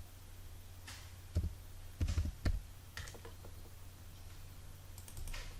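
A few scattered computer keyboard and mouse clicks over a steady low electrical hum.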